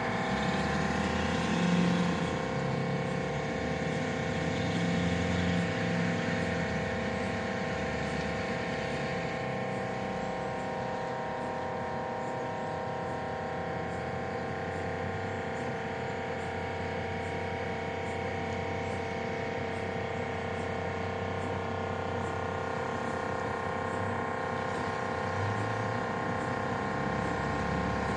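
Mobile MRI scanner in a trailer running, heard from outside the trailer: a steady hum of several tones held throughout.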